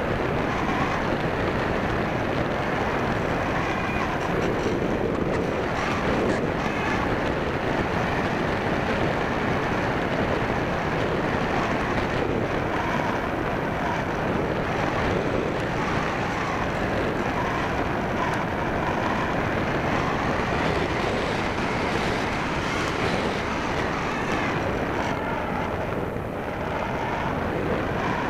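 Steady rushing wind noise on the microphone of a camera carried aboard an E-Uhu RC model aircraft in flight, with faint pitched hums that come and go.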